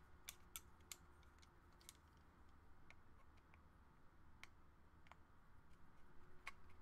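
Faint, scattered small metal clicks of a precision screwdriver working a tiny side screw out of a Super Takumar 300mm f/4 lens barrel, several in the first second or so and a sharper one near the end.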